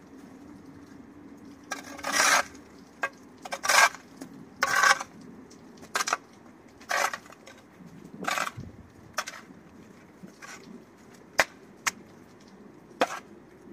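Steel spade scraping across wet concrete paving slabs as loose soil is scooped up and shovelled back into a planting hole. About a dozen separate scrapes, some drawn out over half a second, with a few sharp knocks of the blade in the later part.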